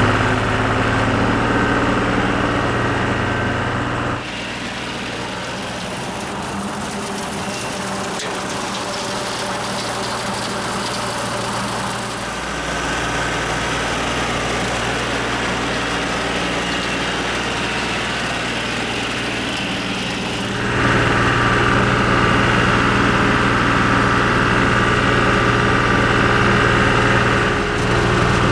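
John Deere utility tractor's diesel engine running steadily at PTO speed, about 2,100 rpm, with the bush hog rotary cutter engaged and mowing. The sound changes abruptly about 4, 12 and 21 seconds in.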